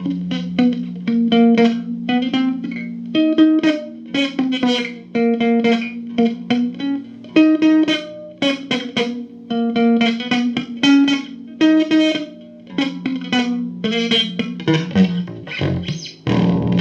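Guitar music: quick picked single notes, several a second, over a held low note. Near the end a fuller chord rings out.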